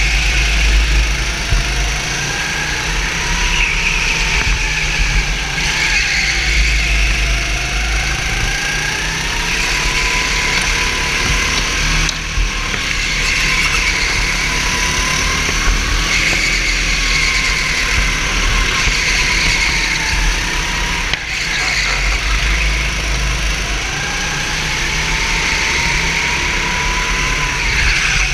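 Onboard sound of a go-kart engine under racing load, its revs climbing on the straights and dropping back into the corners every few seconds, over a steady low rumble.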